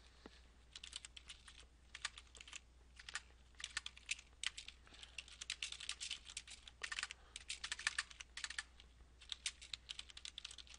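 Typing on a computer keyboard: irregular runs of quick keystrokes broken by short pauses.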